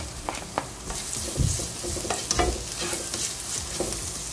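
Chopped garlic sizzling in hot oil in a nonstick frying pan, the sizzle strengthening about a second in as the garlic lands. A spatula scrapes the garlic off a cutting board and stirs it in the pan, with scattered clicks and knocks.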